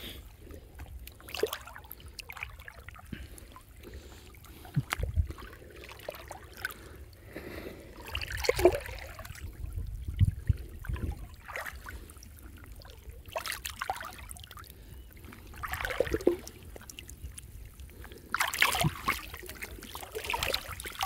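Water sloshing and dripping as a gill net is lifted out of a canal by someone wading chest-deep, with irregular splashes every few seconds.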